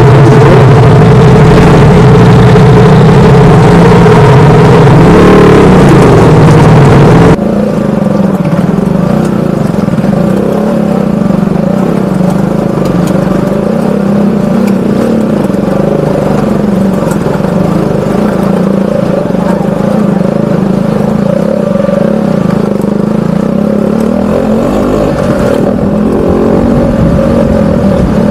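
KTM RC sport motorcycle's single-cylinder engine running at low speed while the bike is ridden over a loose, rocky trail. About seven seconds in, the sound cuts abruptly to a quieter, steady engine note.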